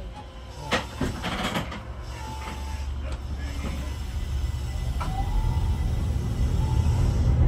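Keihan 800 series electric train pulling away from a stop, heard from the driver's cab. A few sharp mechanical clicks come in the first couple of seconds, then a low rumble of motors and wheels grows steadily louder, with a faint rising electric whine from the traction drive near the end.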